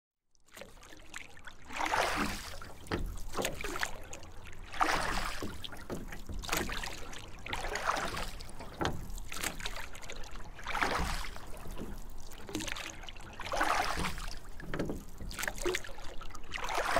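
Paddle strokes in the water beside a small wooden canoe: a splash and swish about every one and a half seconds, fading in at the start.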